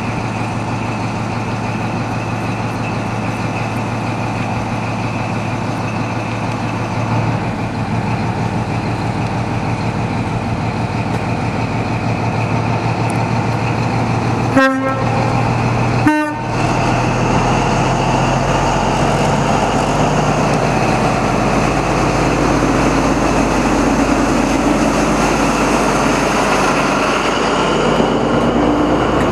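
Class 43 HST power car diesel engine idling at the platform, then opening up as the train pulls away, the sound growing fuller and louder in the second half. The coaches roll past near the end. About halfway there are two brief breaks in the sound.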